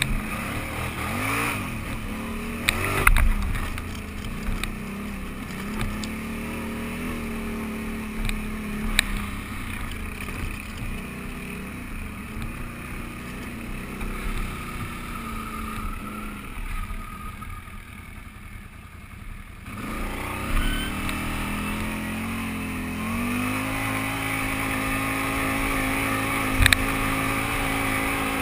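Can-Am Renegade 800 ATV's V-twin engine under way on a rough trail, revving up and down with the throttle. It drops back quieter for a few seconds past the middle, then climbs and holds a steady, higher pitch near the end, with a few sharp knocks along the way.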